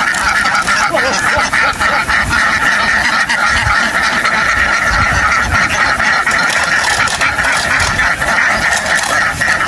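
A large flock of domestic ducks quacking together in a dense, continuous chorus.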